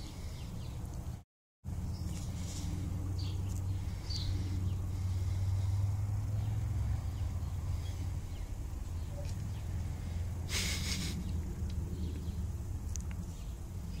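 Low, steady rumble of wind on the microphone outdoors, cut by a brief dropout about a second in, with a short hissing rustle about ten seconds in.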